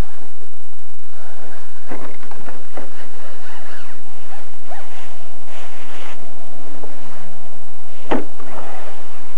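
Electric motor of a radio-controlled short-course truck whining steadily through the middle, with a sharp knock about two seconds in and another near the end.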